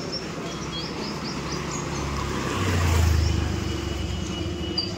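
A motor vehicle passes close by, its low rumble swelling to a peak about three seconds in and then fading. Street noise continues throughout, and birds chirp in short high notes early on.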